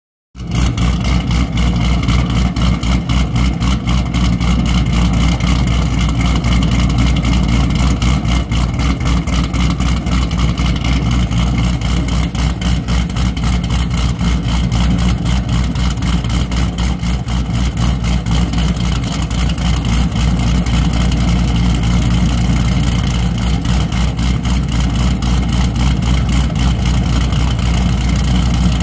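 Chevrolet Camaro 1LE's V8, fitted with an aftermarket camshaft, idling through its exhaust with a choppy, uneven lope.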